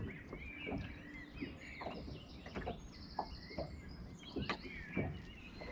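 Small birds chirping and twittering faintly, with a short rapid trill about three seconds in. A few light knocks are scattered through.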